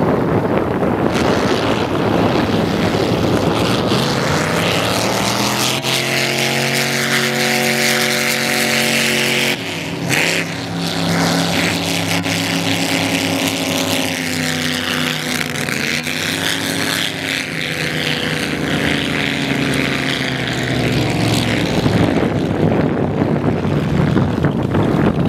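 Racing motorboat engines running hard as the boats speed by: a loud droning note that climbs in pitch as a boat approaches and bends down as it passes. Wind noise on the microphone is strongest at the start and end.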